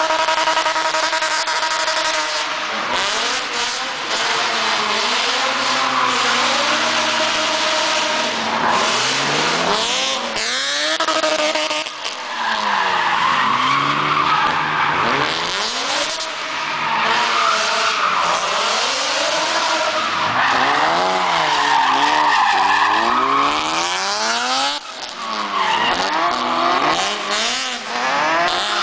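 BMW M5 drift car's engine revving hard, its pitch rising and falling over and over as it slides through the corners. Tyres squeal and screech under the slides, most strongly in the second half.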